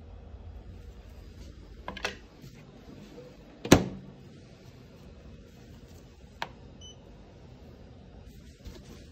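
Door of an Alpha Innotech Red gel imaging cabinet shut with one sharp clack a little under four seconds in, after lighter clicks as the gel tray goes into the chamber. A smaller click and a faint short beep come a few seconds later, over a steady low hum.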